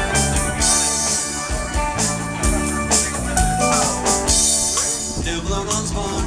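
Live band playing an instrumental passage: keyboard, electric guitar and drum kit, with a steady cymbal beat.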